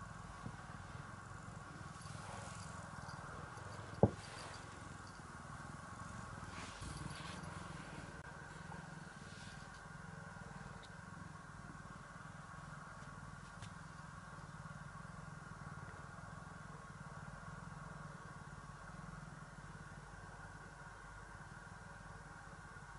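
Domestic cat purring steadily, with one sharp click about four seconds in.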